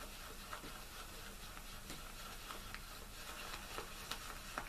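Shaving brush whipping Arko shaving-soap paste in a small plastic lathering bowl, a faint irregular patter of soft clicks and squishes as water is worked into the thick paste to build lather. The clicks get a little busier near the end.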